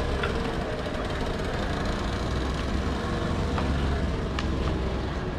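Street ambience dominated by the low, steady rumble of a motor vehicle engine idling, with faint voices and a few short clicks.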